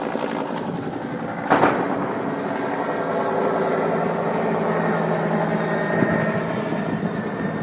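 Steady drone of a helicopter's engine and rotor, with one sharp bang about a second and a half in and a fainter one near the end, which the uploader presents as the helicopter firing its gun.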